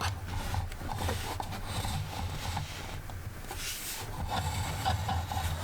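Rubbing and light scraping of handling noise, with small irregular clicks, as the plastic brick-built helmet is handled and turned over, over a steady low hum.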